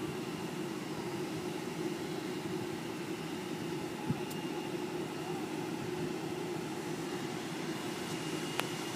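Steady drone of distant jet airliner engines, with a held low hum and a couple of faint clicks.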